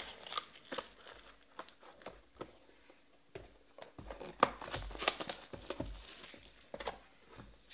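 Trading card packs and their wrappers being handled: scattered rustles, light taps and crinkles as packs are pulled from a cardboard box and set down on the table, busier in the second half with a few soft knocks.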